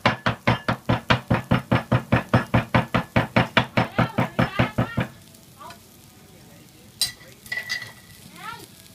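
Field-rat meat being minced, bone and all, with a cleaver on a chopping block: quick, even chops, about five or six a second, stopping about five seconds in.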